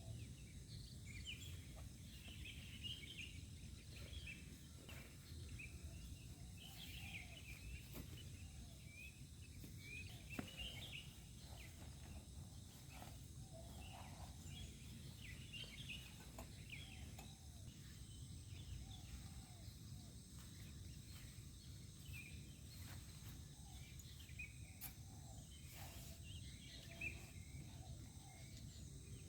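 Faint outdoor night ambience: a steady low rumble under many short, high-pitched chirps and calls from small animals, with a few faint clicks.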